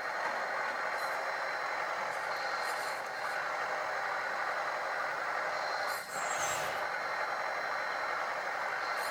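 Simulated diesel engine sound from the LESU DT60 RC bulldozer's original sound board, running steadily through the model's small speaker while its tracks and hydraulics are worked. It dips briefly about six seconds in, followed by a short hiss.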